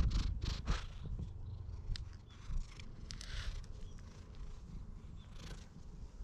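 A cat sniffing and rubbing its face against the camera, its fur and whiskers brushing the microphone in rustling bursts over the first second, then a hand scratching its head. A low rumble runs underneath.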